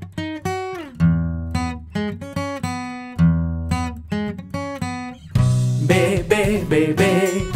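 Instrumental children's-song music: acoustic guitar picking single notes, with a fuller, denser accompaniment coming in about five seconds in.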